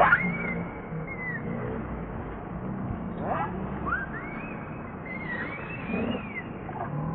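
Baby macaque crying: a string of thin, high calls that rise and fall in pitch, the loudest right at the start, over a low steady hum.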